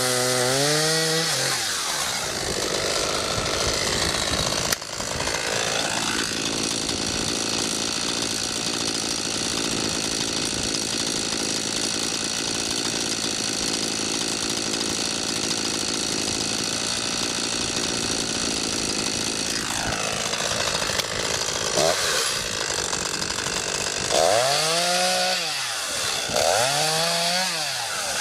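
ECHO CS-500P 50.2 cc two-stroke chainsaw revving in blips, then held at full throttle for about fourteen seconds while cutting wood, then dropping back and blipped up and down several times.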